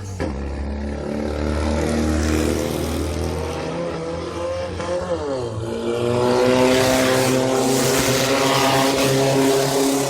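Off-road race vehicle's engine running hard under acceleration. Its pitch drops sharply about five seconds in, as at a gear change or a lift off the throttle, then climbs again, louder.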